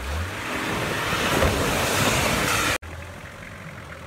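Nissan Patrol Y60's spinning mud tyres churning through water and slush: a loud rushing splash that builds for a couple of seconds over the engine, then cuts off abruptly to a quieter engine sound.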